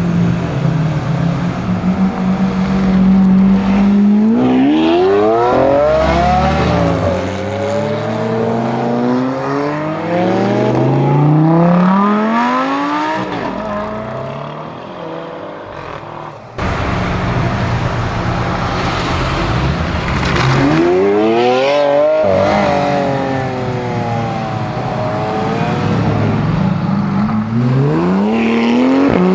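Lamborghini Aventador S's 6.5-litre naturally aspirated V12 accelerating hard, twice. Each time it holds a steady note, then the pitch climbs and drops back at each upshift as it pulls through several gears.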